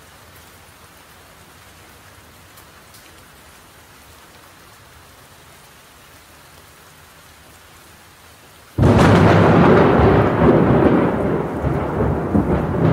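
Steady rain hissing, then about nine seconds in a sudden loud thunderclap that rolls on as a long rumble.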